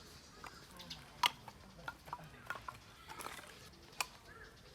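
Scattered light clicks and knocks, with a sharper knock about a second in and another near the end.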